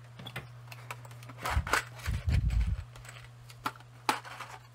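Light clicks and rattles of small parts being handled on a workbench, as crimp connectors for the fan wiring are picked out, with a cluster of heavier bumps and rustling in the middle.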